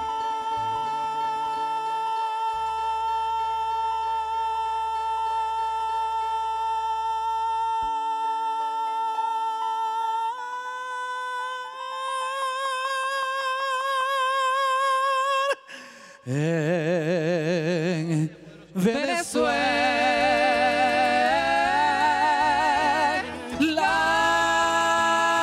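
A male singer holding long, sustained notes, the pitch stepping up about ten seconds in and again shortly after. After two short breaks past the middle, a second male voice joins, and the two sing held notes together with strong vibrato.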